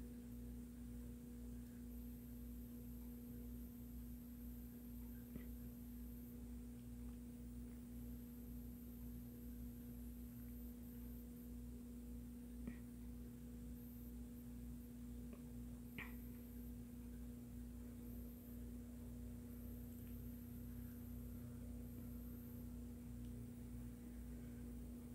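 A faint steady hum on one low pitch, with a few faint clicks at scattered moments.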